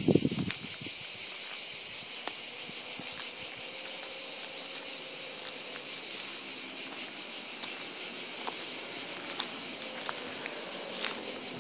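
Insects singing outdoors: a steady, high-pitched chorus with a rapid, fine pulse that does not let up.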